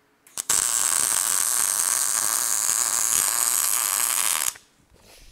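Electric welding arc running a bead along a steel square-tube joint: a steady, loud, crackling hiss that starts about half a second in after a short strike and stops abruptly about a second before the end.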